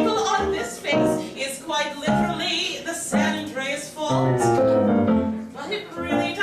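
A woman singing a cabaret song with live piano accompaniment.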